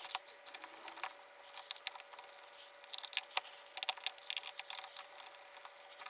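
Hand screwdriver backing screws out of the plastic motor housing of a Festool Domino XL: a scatter of small, irregular clicks and ticks as the screws turn and are handled.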